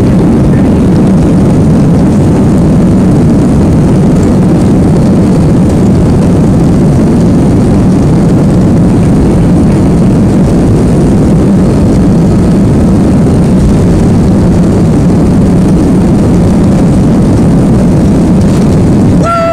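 Airbus A320-214's CFM56 jet engines running, heard inside the passenger cabin as a loud, steady rumble.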